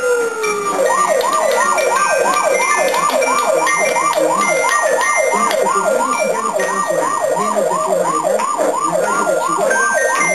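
Electronic siren: a falling wail tails off in the first half second, then the siren switches to a fast yelp, rising sweeps about three a second, with steady high-pitched tones above it.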